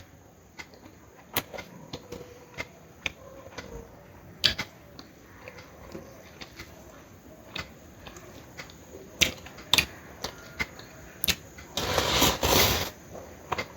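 A person eating close to the microphone: scattered sharp clicks and smacks of chewing and mouth sounds. A louder noisy sound lasts about a second near the end.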